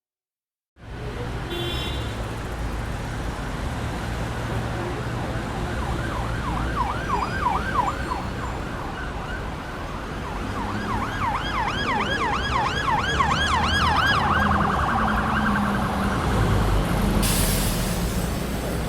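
Emergency vehicle siren in a fast yelp, its pitch sweeping up and down several times a second, over a steady low rumble of engine or traffic. A short burst of hiss comes near the end.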